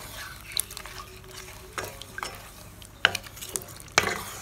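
A wooden spatula stirs chicken pieces through a thick yogurt gravy in a stainless steel pot. It knocks sharply against the pot several times, most clearly three times in the second half.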